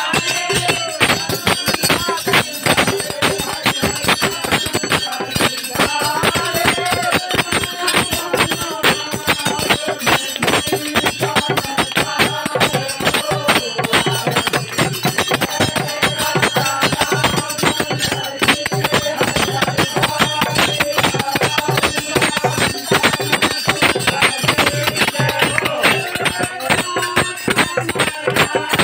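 Hindu devotional music with fast, unbroken percussion and a wavering melody over it, loud throughout.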